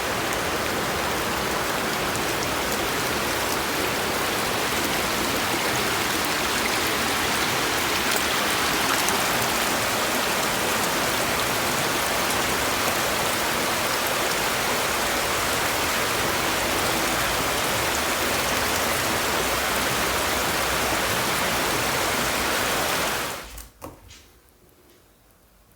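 Flooded creek water rushing steadily, a dense even roar of fast-moving floodwater. It cuts off suddenly near the end.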